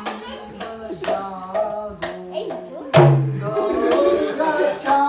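Music with singing or sustained melodic tones over a steady beat of sharp clicks, about two a second.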